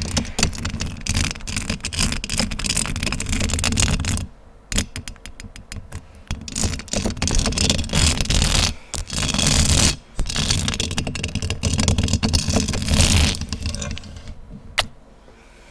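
Fast, aggressive scratching directly on a microphone, dense and rapid. It pauses briefly about a third of the way in and again about two-thirds in, then fades out near the end with one sharp click.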